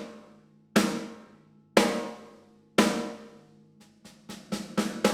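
Gretsch Catalina Club 14x6.5-inch snare drum, unmuffled, with stock single-ply coated heads tuned medium. It is struck three times about a second apart, each hit ringing out with a long, open decay. Near the end a quicker run of strokes follows. The sound is close-miked and mixed.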